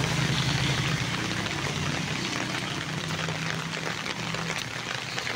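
A motor vehicle's engine running close by in street traffic, a steady low hum that fades away about four and a half seconds in, over a constant hiss of traffic and water noise.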